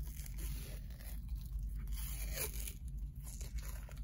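White athletic tape being pulled and torn by hand during an ankle tape job, a crackly ripping sound with its strongest tear about two and a half seconds in.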